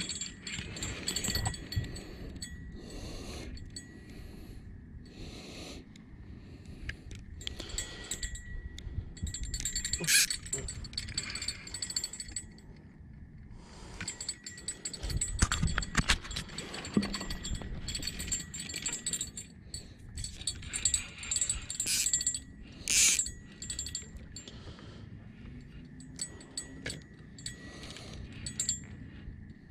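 Small bell on a fishing rod jingling in irregular bursts as a catfish takes the sucker-minnow bait and tugs the line.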